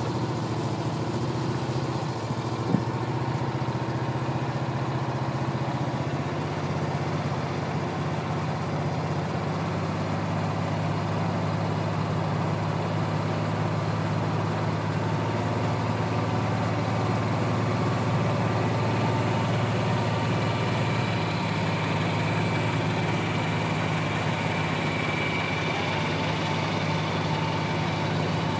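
An engine idling steadily with a low, even hum, and a single sharp click about three seconds in.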